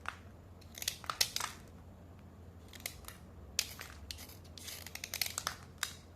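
A slate pencil being dry-scraped: short, sharp scraping strokes in small groups, with pauses between them.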